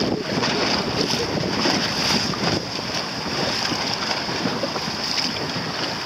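Steady wind noise on the microphone over the wash of choppy sea water.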